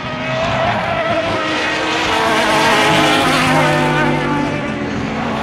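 A pack of endurance-racing prototype and GT cars passing at speed, many engines running together at once. The sound swells to its loudest about three seconds in as the bunch goes by.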